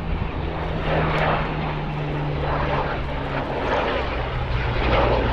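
Supermarine Spitfire's Rolls-Royce Merlin V12 engine droning in a flypast, its pitch dropping a couple of times as it passes.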